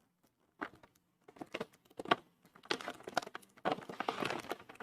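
Heavy plastic snack packet being handled and opened: scattered crinkles at first, then denser crinkling and rustling in the second half.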